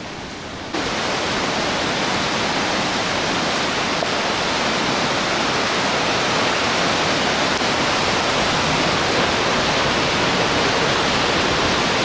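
Loud, steady rush of fast-flowing river water, coming in abruptly about a second in.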